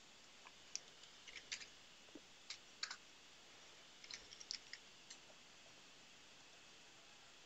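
Faint computer-keyboard keystrokes: scattered single clicks and short runs of typing, stopping about five seconds in.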